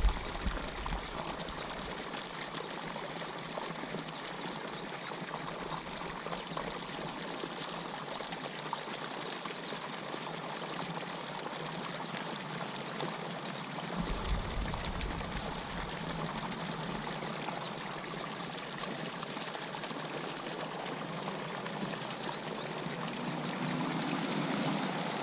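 Water pouring steadily into a pond from an inlet where water is being pumped in: a constant rush of falling water.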